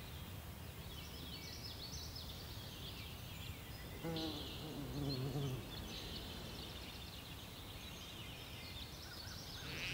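Faint outdoor nature ambience: a steady low rumble with scattered high bird chirps. About four seconds in comes a lower, wavering animal call lasting about a second and a half.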